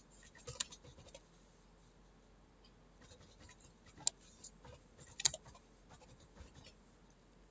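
Computer keyboard keys being typed: faint light clicks in short irregular runs, with a few sharper strokes.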